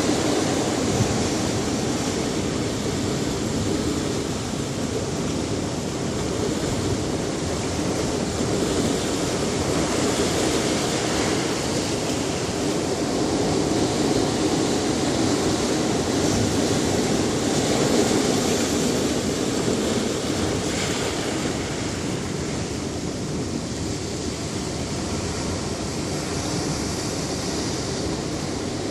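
Ocean surf washing onto a beach: a steady rush of waves that swells and eases slowly.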